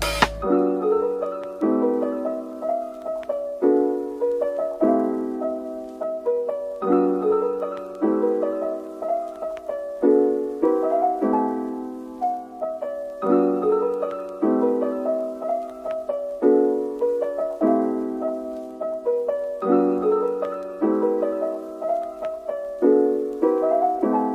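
Background piano music: a phrase of struck, fading notes that repeats every few seconds.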